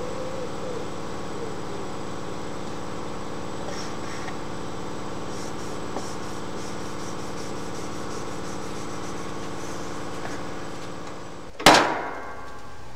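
Steady mechanical hum of several tones, with one loud sharp knock near the end, after which the hum continues more quietly.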